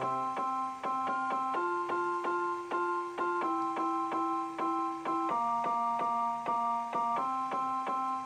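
Background keyboard music: a light piano-like tune of quick, evenly repeated notes over chords that change every second or two.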